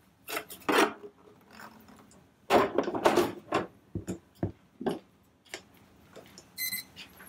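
Plastic housing parts and tools being moved about on a workbench: a run of knocks, clicks and rustles, loudest about two and a half to three and a half seconds in, then scattered lighter clicks and a short high beep near the end.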